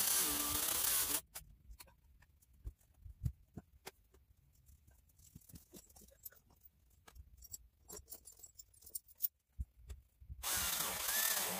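A 15-amp corded electric chainsaw cutting through a log, stopping abruptly about a second in. Then scattered knocks and clatter while the saw is off, and the saw starts cutting again near the end.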